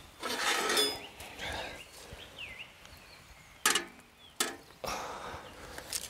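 Brief rustles and a couple of sharp clinks and knocks as flatbread and a metal kebab skewer are handled on an aluminium-foil tray.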